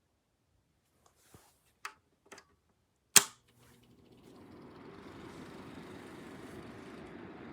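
A few light clicks and one loud sharp click, then a steady fan-like whoosh rising in over about a second and running on evenly, consistent with the Vornadobaby Tempa space heater's fan being switched on.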